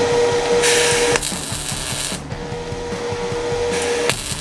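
A Stahlwerk MIG 135 M IGBT welder MAG-welding at 90 amps, its arc crackling in two bursts of about a second and a half, the second starting near the end. A steady hum sounds between them. The steel tube still has fryer grease on it, which makes it weld poorly.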